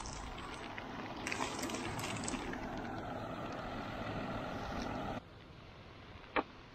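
Tractor engine running steadily, with the plastic silage tarp rustling as it is pulled over the corn. The sound drops away suddenly about five seconds in, and a single sharp click follows about a second later.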